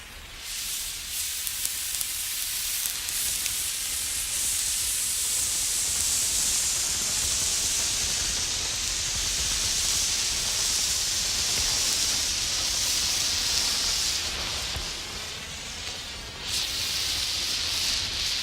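Emergency flare burning with a steady, high-pitched hiss. The hiss eases briefly about three-quarters of the way through, then comes back strong.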